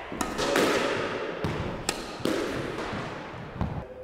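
Squash ball being struck with a racket and knocking against the court's walls and wooden floor: several sharp knocks spread across the few seconds, each echoing in the enclosed court.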